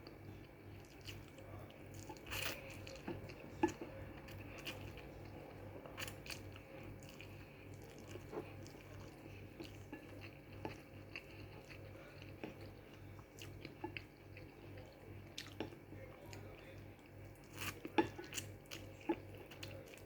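A person eating instant pancit canton noodles close to the microphone: soft chewing and mouth sounds with scattered small clicks of utensils, quiet throughout. A faint low hum pulses steadily underneath.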